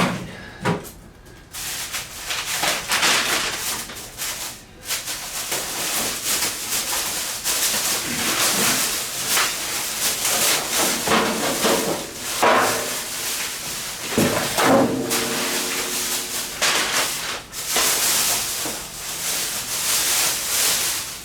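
Cardboard and packing foam rustling, scraping and tearing while a metal tool cart is unpacked from its box, with short squeaks of foam rubbing in the middle.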